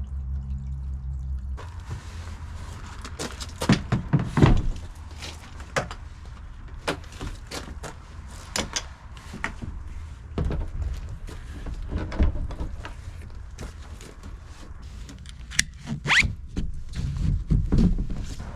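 Irregular knocks and clunks from handling and fitting a kayak wall rack, the loudest clusters about four seconds in and near the end, over a low steady rumble.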